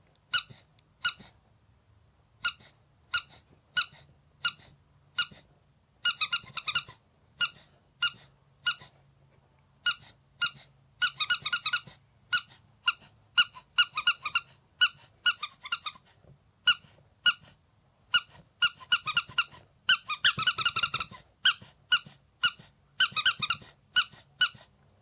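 Squeaker in a toy monkey being squeezed over and over: single sharp squeaks about every two-thirds of a second, then quick runs of squeaks from fast squeezing.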